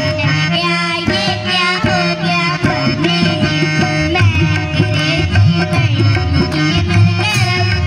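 Live Indian folk music: a harmonium playing the melody over a steady hand-drum rhythm.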